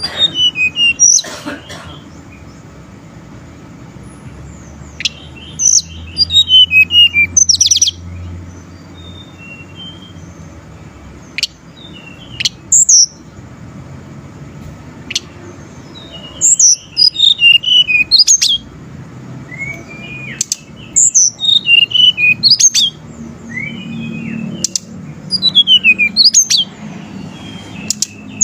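Tledekan gunung singing in bursts of rapid, high-pitched chirps and short trills, a phrase every few seconds with pauses between.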